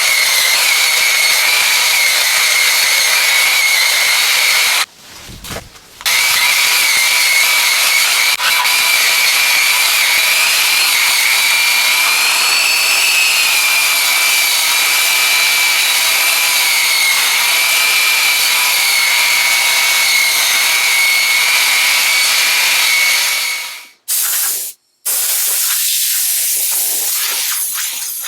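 Makita drum sander running against a hand-hewn log, a steady high motor whine over the hiss of sanding the wood. The sound breaks off briefly about five seconds in and twice more near the end.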